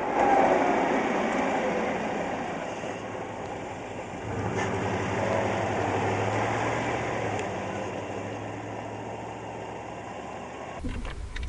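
Chevrolet pickup truck's engine and exhaust: a loud rush of noise for the first few seconds, then from about four seconds in a steady low exhaust rumble at idle, fading near the end as the truck pulls away.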